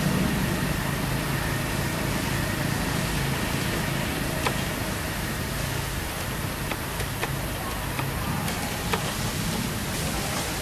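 Steady outdoor background noise with a low hum, like vehicle traffic, and a few faint clicks scattered through it.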